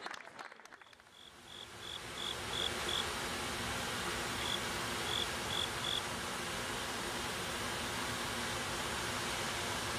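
Cricket chirping outdoors: short, evenly spaced chirps at one high pitch, about three a second, in two runs, over a steady hiss of background noise that fades in during the first second or two.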